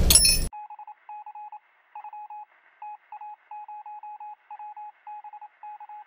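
Electronic beeping sound effect: a single-pitched beep chopped into quick, irregular runs of short pulses, starting about half a second in after the room sound cuts off abruptly.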